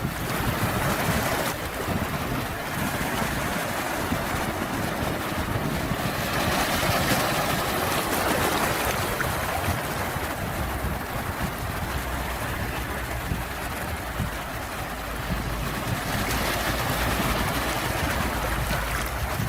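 Sea surf: a continuous rush of waves that slowly swells and eases every several seconds.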